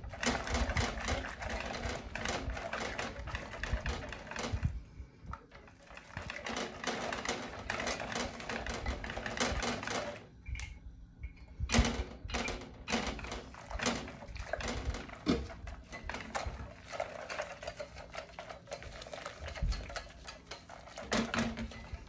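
A wire whisk rattling fast against the sides of a stainless steel saucepan, beating egg yolks into hot cream quickly so they don't curdle. It runs in long stretches, with short pauses about 5 seconds in and again about 10 seconds in.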